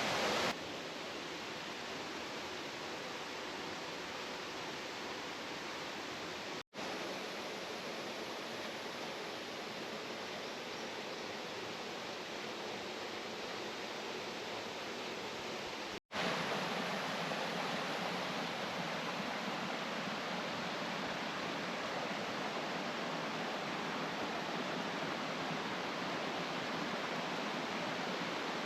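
Waterfall water rushing in a steady roar of noise. It breaks off for an instant twice and is a little louder after the second break.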